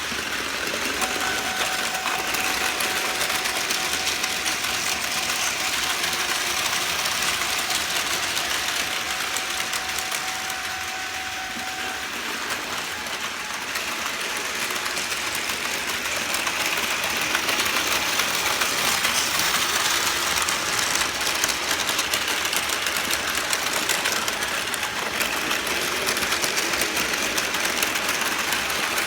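Battery-powered Plarail toy train hauling coupled freight cars on plastic track: a steady motor whir with rapid clicking of wheels over the track, getting fainter and louder again. A steady high tone sounds for the first ten seconds or so, then stops.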